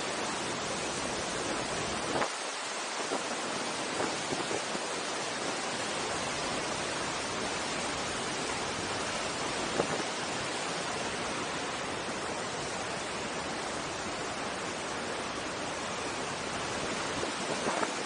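Waterfall roaring: a steady rush of falling white water, with a few faint clicks.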